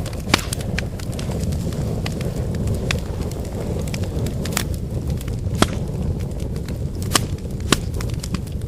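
Wood fire burning: a steady low rumble of flames with sharp, irregular crackles and pops from the burning firewood, a few of them louder than the rest.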